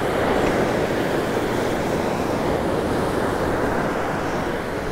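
Surf breaking on a sandy beach: a steady rush of waves.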